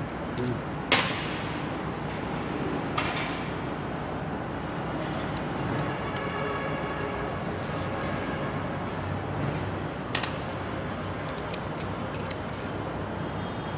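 A few sharp metallic knocks and clinks of hand tools and parts being handled on the engine, the loudest about a second in, others near three and ten seconds, over a steady background hum of workshop noise.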